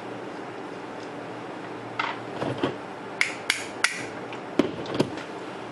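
A quick series of sharp clicks and light knocks, about eight in three seconds with some scraping between them, from a lawnmower starter solenoid being taken apart and its small metal parts handled.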